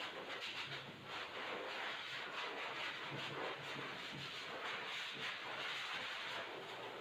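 Electric dog clipper running and shaving through a Shih Tzu's matted coat: a faint low motor buzz under a steady hissing cutting noise that wavers as the blade moves through the hair.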